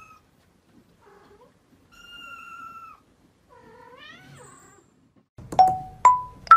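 Young kittens mewing: several short, thin, high mews, the last one rising in pitch. From about five and a half seconds in, three loud ringing plinks step up in pitch, a musical sound effect.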